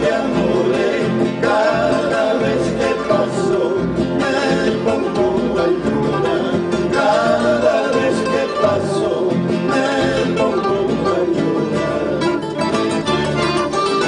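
A traditional Peruvian huayno played live on acoustic guitars, with a man singing.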